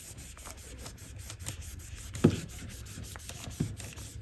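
Cotton pad rubbing and wiping over the lid of a makeup palette, a soft scratchy rubbing with small ticks. There is a louder knock about two seconds in and a lighter one later.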